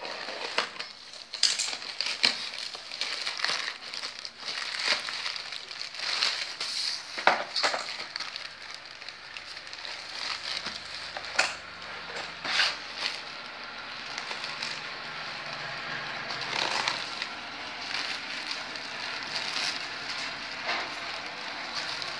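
Plastic courier mailer crinkling and crackling as it is slit open with a blade and torn apart by hand, with many sharp, irregular snaps of the plastic.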